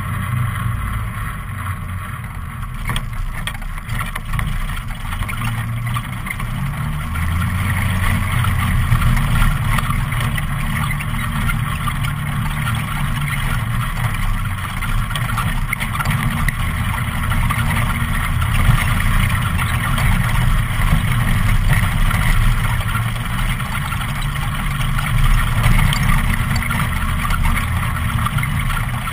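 ATV engine running as the quad is ridden, its pitch stepping up and down with the throttle.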